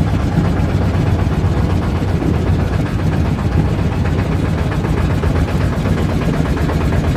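A heavy engine running steadily with a low hum and a fast, even pulse.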